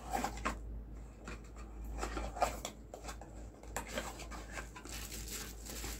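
Light handling noises of unpacking: scattered rubbing, scraping and small clicks of packaging being handled, over a steady low hum.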